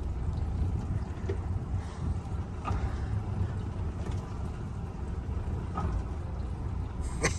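A twin-engine boat's motors running steadily at low throttle, a low rumble, with a few faint clicks and a sharper click near the end.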